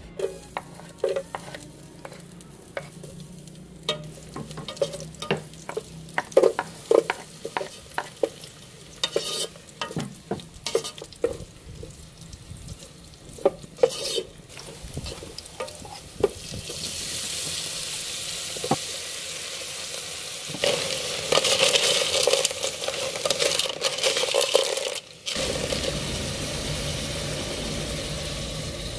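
Chopped garlic, shallots and ginger frying in oil in a metal pot, stirred with a wooden spoon that clicks and scrapes against the pot, then settling into a steady sizzle that grows louder. Near the end, liquid is poured into the pot.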